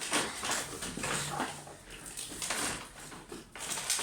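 Small toy kitchen pieces being handled and packed into their box: irregular rustling with light knocks and clatters.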